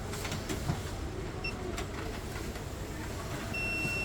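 Cabinet smart lock's buzzer giving a short electronic beep about a second and a half in, then a longer beep near the end, as its restart button is held: the lock signalling a restart. A steady low rumble runs underneath.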